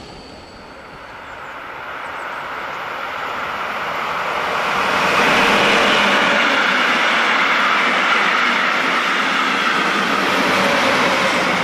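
Passenger train of red coaches rolling past close by on electrified line: the wheel and rail noise builds over the first five seconds, then holds as a loud, steady rush as the coaches go by.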